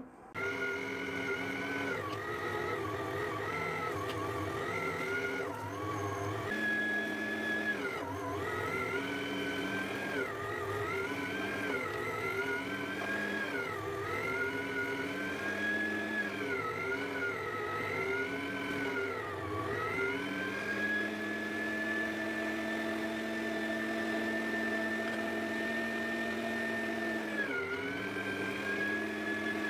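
Electric meat grinder switched on and running as beef is fed through it. Its motor whine sags and recovers over and over as chunks load the auger, then holds a steady pitch for the last third.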